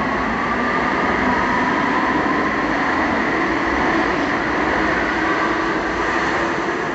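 Alstom Citadis Spirit light-rail train of the O-Train Confederation Line pulling out of the station past the platform: a steady rumble of wheels and running gear with a faint motor whine.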